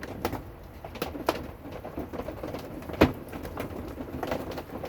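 Irregular sharp knocks of storm drops striking the camper's roof over a low steady hiss, with one louder knock about three seconds in.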